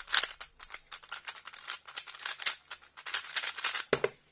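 3x3 speedcube being turned very fast, a dense run of plastic clicks and clacks from the layers snapping round. Near the end the cube is let go and the hands come down on the stackmat timer to stop it, giving a heavier knock.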